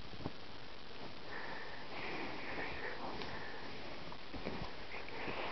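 White kitten sniffing in two breathy spells, from about a second in and again near the end, with a few light taps.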